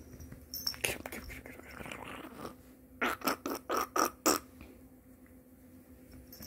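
Cats playing, with scuffling and scratching sounds. About three seconds in comes a quick run of six or seven short sounds.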